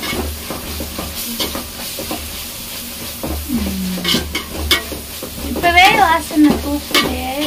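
A metal spoon stirring and scraping browned onions, coriander and mint in an aluminium pot, with the oil sizzling underneath and the spoon knocking against the pot's side again and again.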